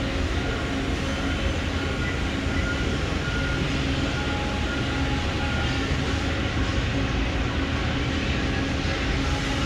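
Amada CNC press brake running with a steady machine hum and rumble, a few constant tones over it.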